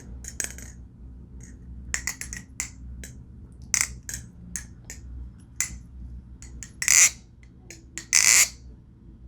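Balisong butterfly knife being flipped: irregular sharp clicks and clacks as the handles and blade swing and strike, with two louder, longer clatters near the end. Rubbery handle caps on the handle ends deaden the ring from the blade.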